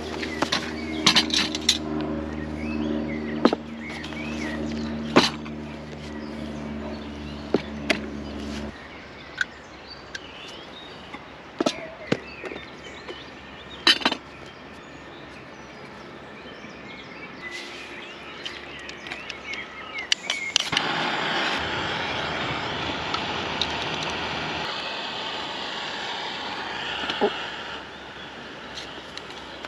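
Small gas-canister camping stove burning with a steady hiss, starting about two-thirds of the way in, while coffee is brewed in a pot on it. Metal cookware clinks and knocks as it is handled throughout. For the first several seconds a steady low hum sounds, then stops.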